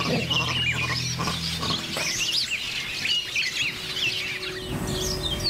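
Several birds chirping in quick, overlapping short calls, with a low steady hum underneath for the first couple of seconds.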